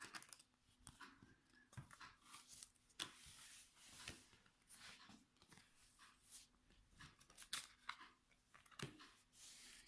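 Faint, scattered rustling and small taps of trading cards and foil booster packs being handled and set down.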